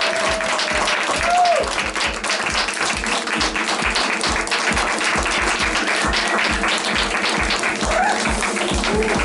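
Audience applauding and cheering, with a few short whoops, over music with a fast steady beat of about four low thumps a second.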